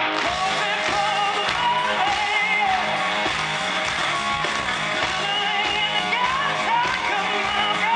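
Live rock band playing loud electric guitar, bass and drums while the lead singer sings long, sliding lines, heard from within the audience.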